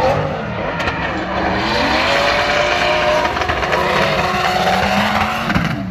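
Two drift cars sliding in tandem, their engines revving high with the pitch rising and falling repeatedly, over the hiss of spinning, sliding tyres.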